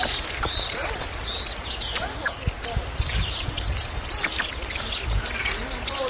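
Red-necked tanager (saíra-militar) singing: repeated short phrases of rapid, very high, thin notes.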